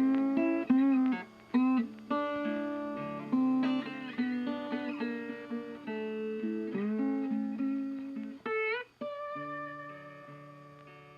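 Background music of plucked acoustic guitar: notes picked and strummed, each ringing and fading, with a few sliding up in pitch. Near the end a held chord dies away.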